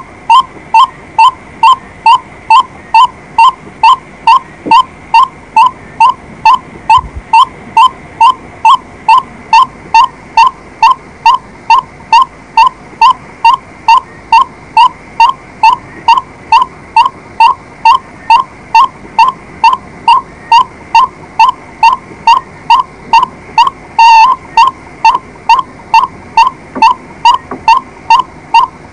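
White-breasted waterhen calling: a monotonous series of short, loud, identical notes repeated evenly, a little over two a second, with one louder note near the end.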